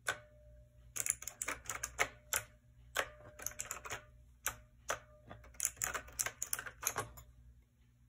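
Keys of a KnewKey typewriter-style mechanical keyboard with round keycaps being pressed, clacking in irregular single presses and quick runs of several keys. The clicks stop shortly before the end.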